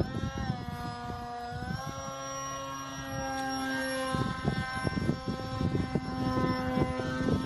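Electric motor and propeller of a Depron foam RC plane whining at a steady pitch, which dips just after the start and climbs back after about two seconds.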